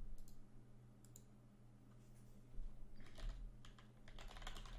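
Computer keyboard typing and clicking, faint. A few isolated keystrokes come first, then short runs of keystrokes in the second half.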